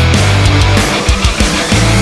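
Background music: loud, heavy rock with distorted guitars, a thick bass line and drums.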